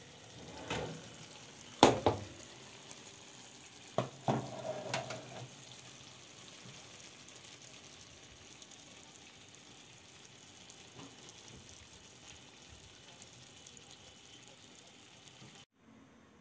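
Freshly baked burek sizzling in its enamel pan just out of the oven, a steady fine hiss of hot fat and pastry. A few sharp knocks and clanks of the metal pan against the oven in the first five seconds, the loudest about two seconds in.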